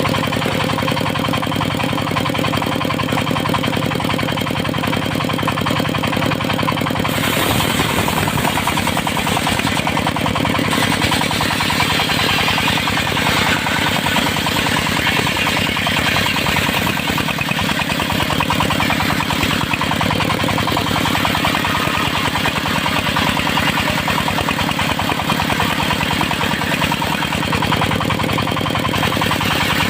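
Engine-driven circular sawmill blade running steadily. About seven seconds in, a harsh rasp joins it as the blade starts cutting teak, and the cut goes on through most of the rest.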